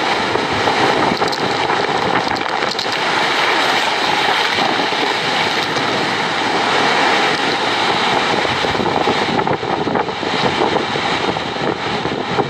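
Strong storm wind blowing across a microphone: a loud, steady rushing noise with no let-up.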